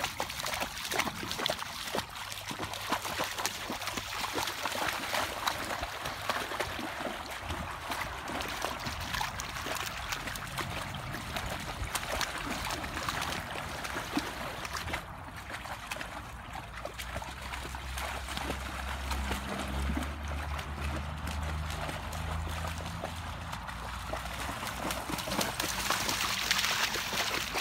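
Dogs wading and splashing through a shallow stream: constant running, splashing water with many short splashes from their legs, over the stream's flow. A faint low hum joins in for a few seconds past the middle.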